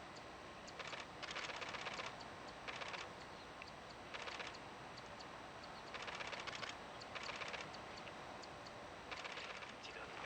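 Zitting cisticola (fan-tailed warbler) giving its dry, rapid clicking "chat-chat-chat" call in about six short bursts, each well under a second. This rattling call is the one it gives while perched or dropping down, as opposed to its thin "hee-hee" flight call.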